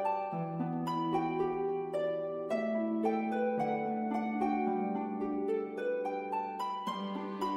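Background music: a gentle melody of plucked-string notes over held lower notes, in a steady even pace.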